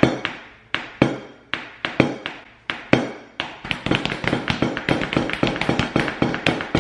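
A hand tapping a rhythm on a wooden tabletop: sharp taps about two a second at first, then a fast run of quicker taps from about halfway through.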